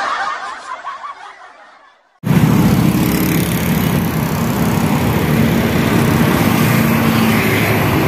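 A cartoon chuckling sound effect fades away over the first two seconds. Then, after a sudden cut, steady street traffic noise follows: cars and motorbikes driving past on a busy city road.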